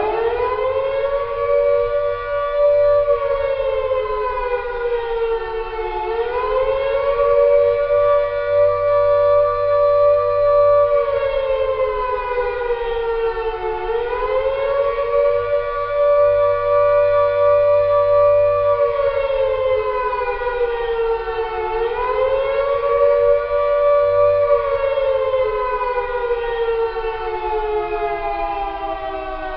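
Air-raid siren wailing in two pitches at once, rising quickly, holding, then sliding down, with a new rise about every eight seconds. Near the end it falls in one long slow slide.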